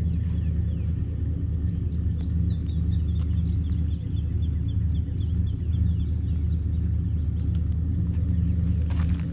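2000 Chevrolet Silverado's 4.8 L V8 idling through a Flowmaster exhaust: a steady low rumble with no revving. Birds chirp from about two to five seconds in, over a faint steady high whine.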